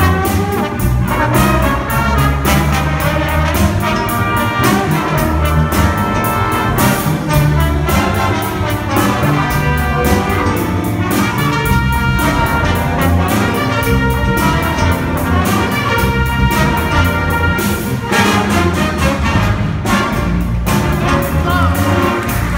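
Student jazz band playing live: trumpets, trombones and saxophones over a drum kit and electric guitar, with a steady beat.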